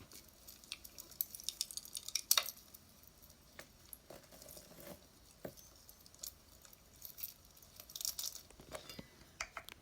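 Small pieces of jewelry clicking and clinking together as they are handled and untangled, with light rustling between the clicks; the clicks come in irregular clusters, busiest about two seconds in and again near eight seconds.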